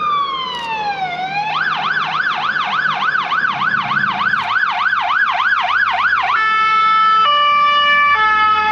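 Fire engine's siren sounding as the truck approaches and drives past. A slow wail falls in pitch. It switches about one and a half seconds in to a fast yelp of about three to four sweeps a second. Near the end it changes to steady alternating notes that step in pitch about once a second.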